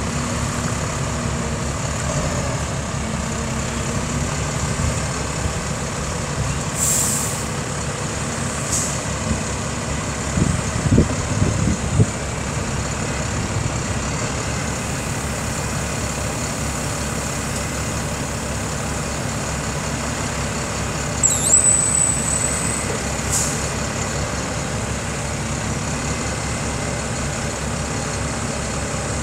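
2005 International 4300 truck's diesel engine running steadily while the knuckle boom's hydraulics swing the boom and open the grapple. Short hisses come a few times, a few clunks about a third of the way through, and a brief high squeal about two-thirds of the way through.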